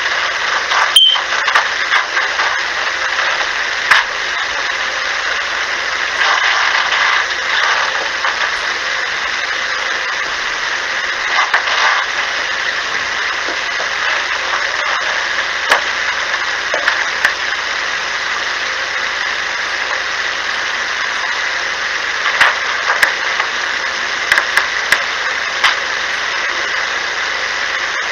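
Steady hiss of an amplified voice-recorder recording, with scattered faint clicks and a few brief louder noises.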